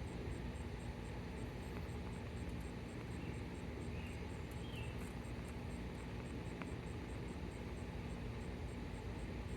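An insect calling outdoors: a steady run of short, high-pitched pulses at about four a second, over a constant low rumble.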